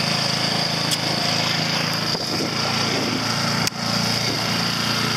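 Dinghy's outboard motor running steadily under way, with a sharp click and a brief drop in level about three and a half seconds in.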